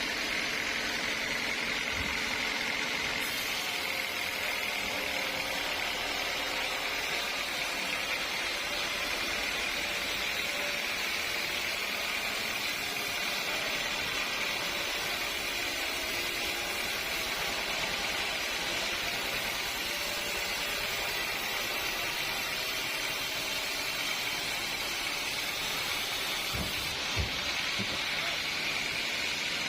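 Sawmill machinery running steadily with a constant even noise and a faint steady whine, with a couple of short knocks near the end.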